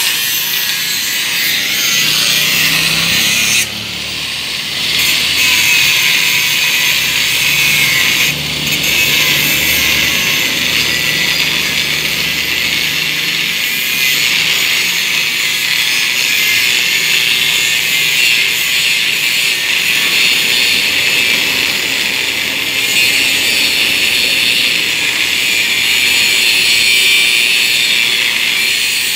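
Angle grinder cutting into a curved steel bar, a steady, loud, high-pitched grinding hiss that briefly eases off about four seconds in and again about eight seconds in.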